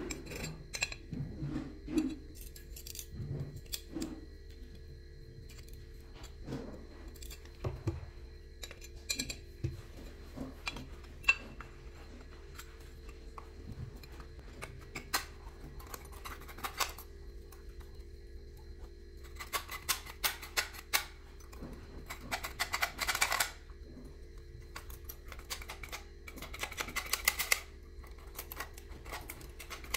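Metal mortise door lock being handled and worked by hand: scattered small metallic clicks and knocks from the lock case, latch and cylinder, with a few short bursts of rapid clicking in the second half as the mechanism and key are worked.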